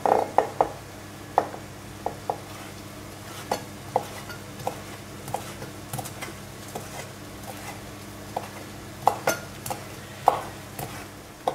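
Santoku knife chopping rosemary leaves on a bamboo cutting board: irregular knocks of the blade striking the wood, about two a second, with a quicker cluster of strikes near the start and again about nine seconds in.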